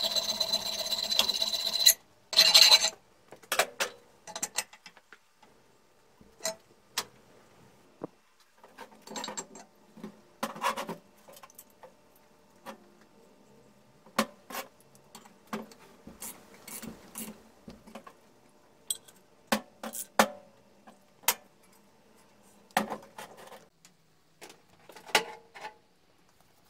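A small power tool runs with a steady whine on the flywheel nut of an old lawnmower engine and stops abruptly about two seconds in, followed by a loud clatter. After that come scattered knocks and clinks of metal parts being handled on a steel workbench.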